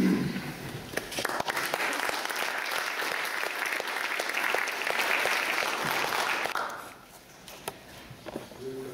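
Audience applauding, many hands clapping together; it builds about a second in and dies away after about six seconds.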